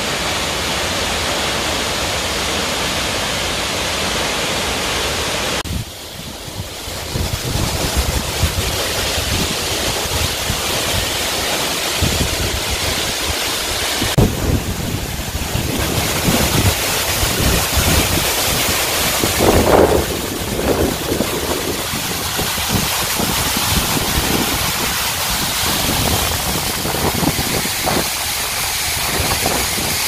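Waterfall: the steady, even rush of water falling down a rock face. From about six seconds in, wind buffets the microphone with irregular low rumbles over the water noise.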